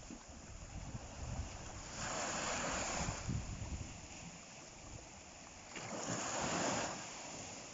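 Sea waves washing onto the shore, with two louder surges of surf about a second long, roughly four seconds apart, over a steady wash of water.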